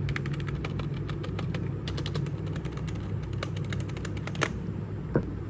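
Keys of a FireWolf FW-K30 membrane keyboard being typed on up close: a run of soft, quick key clicks, some in fast bursts, with a couple of firmer presses near the end. Membrane switches keep the key noise low.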